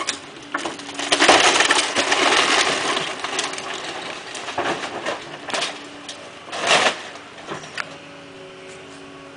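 Excavator tearing apart a house roof: a long crash of crushing and breaking timber and roofing about a second in, then sharp cracks, the loudest near seven seconds in, over the excavator's steady engine hum.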